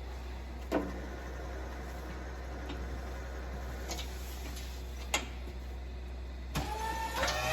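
A steady low hum with three sharp clicks or knocks spaced a second or more apart. Near the end, music with held tones begins.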